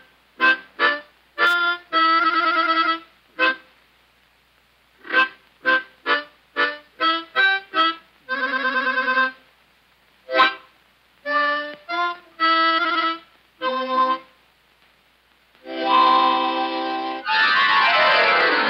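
Short accordion chords squeezed out in an uneven, stop-start rhythm with brief silences between them. Near the end a longer chord is held, then slides downward in pitch.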